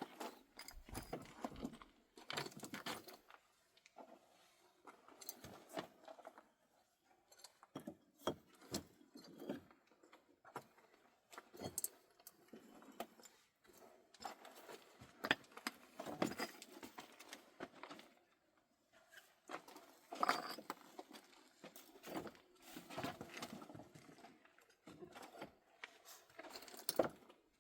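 Irregular small clinks, scrapes and rustles of objects being handled, coming in short clusters with brief pauses between.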